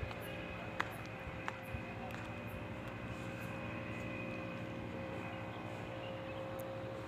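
Steady mechanical drone, like a motor running, with a few light clicks about a second in.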